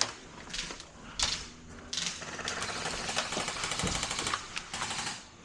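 Airsoft guns firing bursts of rapid, evenly repeating mechanical clatter: a short burst about a second in, a long burst of about two seconds from two seconds in, and another short burst near the end.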